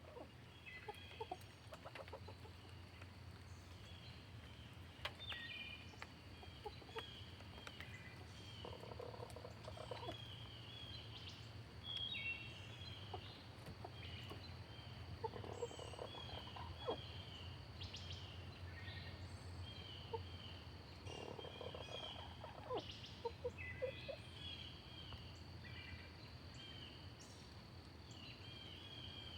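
Sleeping chicken snoring: three soft snores, each about a second and a half long, roughly six seconds apart. Many short, high chirps run throughout over a steady low hum.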